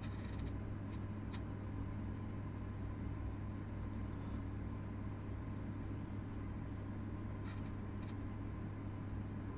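Steady low hum throughout, with a few faint clicks.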